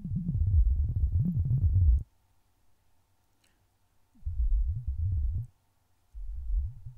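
Helm software synthesizer playing a deep, bubbling patch in a low octave: a single oscillator through a highly resonant filter, its pitch wobbling under modulation. It sounds in three bursts, the first about two seconds long, the next about a second long starting around four seconds in, and the last starting just past six seconds.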